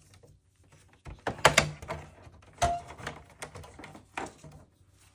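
A handful of separate knocks and thunks, plastic and metal parts of a PlayStation 5 being handled as its motherboard is lifted out, the loudest a couple of seconds in.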